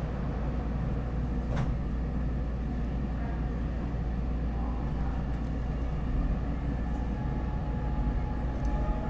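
SEPTA Market–Frankford Line subway train pulling out of the station, a steady low rumble with one sharp click about a second and a half in. A faint motor whine rises in pitch near the end as the train picks up speed.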